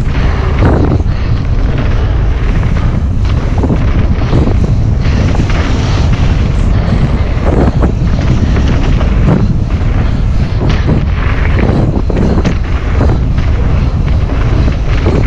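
Loud wind buffeting on the microphone of a camera riding along with a mountain bike moving fast over a dirt trail, with a steady rumble of tyres and frequent irregular knocks and rattles from the bike jolting over bumps.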